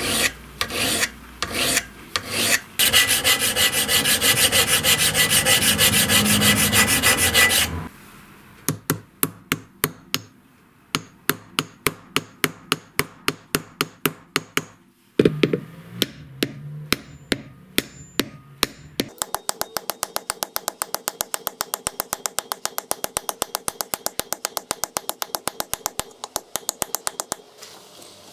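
Hand work on brass with a series of tools. First a hand file rasps across a brass hammer head in a few separate strokes, then a steady rasping noise runs for about five seconds. Next come slower, spaced rubbing strokes of a sandpaper block, and from about two-thirds of the way in a fine-toothed hand saw cuts in quick, even strokes, about six a second.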